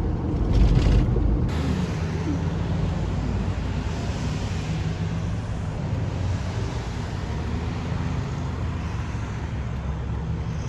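Steady road noise and engine hum of a car heard from inside the cabin while driving, with a louder low rumble in the first second and a half.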